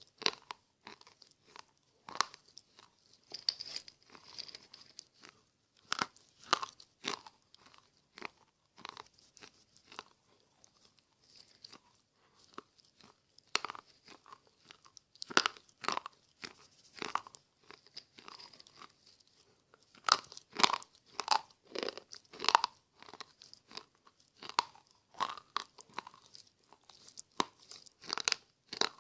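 A person chewing slate pencils close to the microphone: irregular sharp crunches of the brittle slate breaking between the teeth. The crunching thins out about a third of the way in and comes thick and fast again in the later part.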